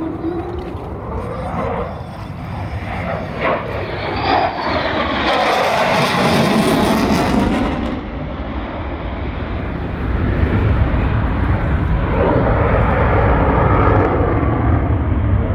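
Airplane engine noise from aircraft flying past, with sweeping changes in pitch. The sound swells loudest about five seconds in and again from about ten seconds in, with a deep rumble in the second half.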